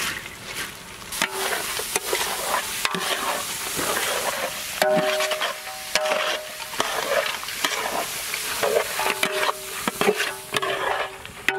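Soaked chana dal poured into a large metal pot of sizzling mutton masala and stirred in, with a hiss of frying and many scraping clicks against the pot.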